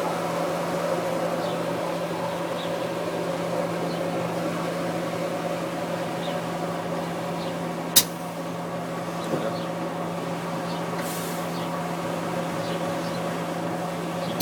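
Hess Einheit 1900 shoe repair machine running with a steady motor hum, with a sharp click about eight seconds in.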